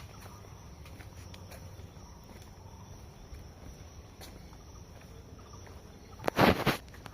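Forest ambience with insects keeping up a steady high-pitched drone and a few faint clicks; near the end a loud, brief rustling knock lasts about half a second.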